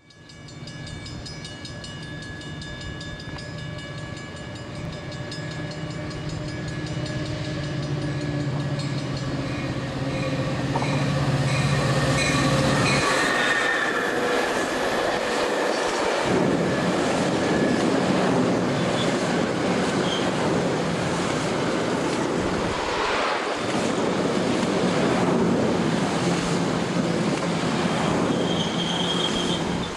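Metra commuter train of stainless-steel bilevel cars: a steady hum that grows louder as the train approaches, then, from about halfway in, a loud rushing rumble as the cars pass close by, with regular clicking of wheels over the rail joints. A brief high-pitched wheel squeal comes near the end.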